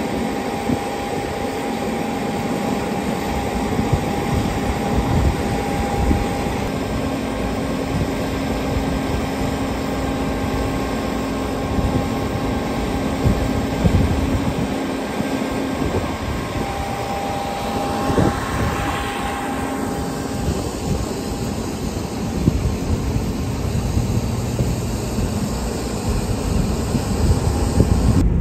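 Claas combine harvester's engine running with a steady drone and a held whine over it, with scattered low knocks and a brief swell of hiss about two-thirds of the way through.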